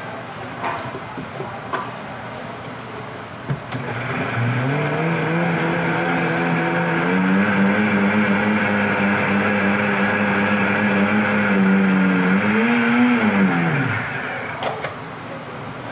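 Electric blender switched on after a few light clicks. Its motor spins up to a steady whine, runs for about nine seconds, then winds down and stops as a shake is blended.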